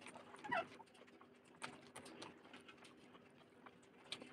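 Faint wet clicks and squishes of fingers mixing rice and fish curry on a steel plate, with a brief squeak about half a second in and a low steady hum beneath.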